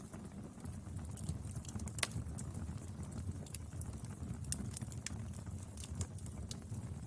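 Wood fire burning: irregular sharp crackles and pops over a low, steady rumble of the flames, with one louder pop about two seconds in.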